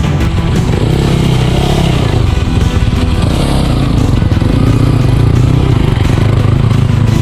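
Motocross bike engine running hard.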